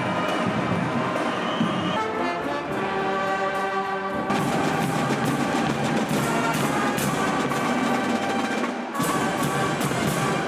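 Marching bands playing: brass (sousaphones and euphoniums) over marching drums, with cymbal crashes in the second half. The music changes abruptly a few times.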